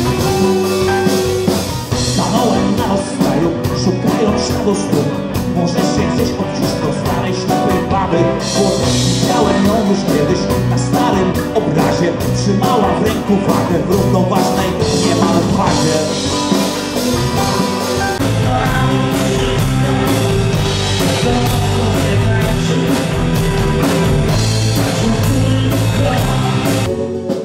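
Live rock band playing amplified electric guitars and a drum kit with a steady beat, a male voice singing over it.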